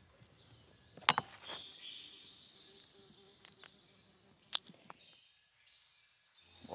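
Quiet outdoor background with a faint steady high insect drone, broken by a few sharp light clicks, the clearest about a second in and another about four and a half seconds in. The sound drops almost to silence for about a second near the end.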